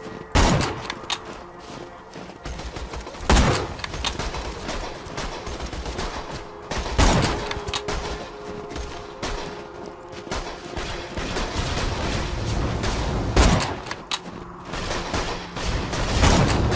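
Video game sniper rifle sound effects: five loud single shots a few seconds apart, each with a short ringing tail.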